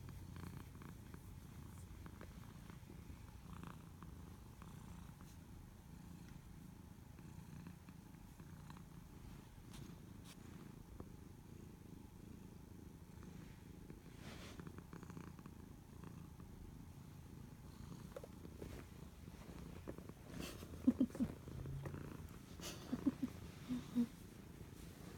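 House cat purring steadily up close, a low continuous rumble. A few brief louder sounds break in near the end.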